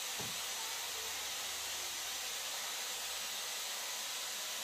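Steady, even hiss with no distinct tone or rhythm.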